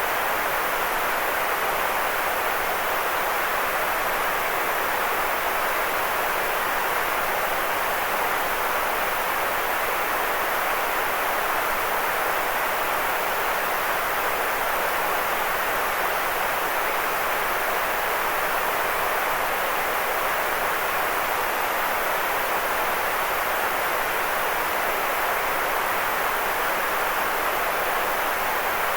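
Steady synthetic white noise for sleep, an even hiss with no changes, strongest in the middle range and softer in the deep bass.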